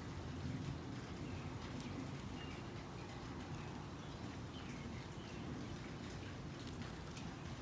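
A few faint, short bird chirps over a steady low background rumble, with scattered soft ticks.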